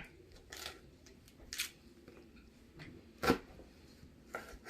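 Kitchen knife cutting through Brussels sprouts on a cutting board: four separate crisp cuts about a second apart, the loudest about three seconds in.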